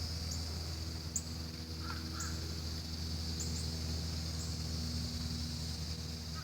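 Outdoor ambience with steady insect buzzing and a low hum, repeated short high bird chirps, and a brief bird call about two seconds in.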